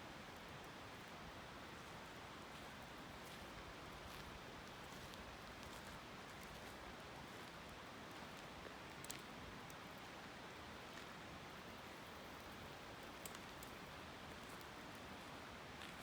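Faint, steady rush of a flowing river, with a couple of faint sharp snaps about halfway through and again later.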